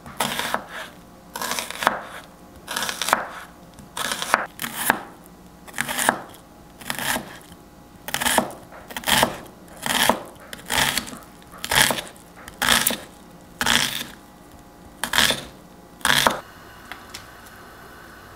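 A kitchen knife chopping tomato, onion and bell pepper on a cutting board, in a steady run of strokes about one to two a second. The strokes stop about 16 seconds in, leaving a faint steady hiss.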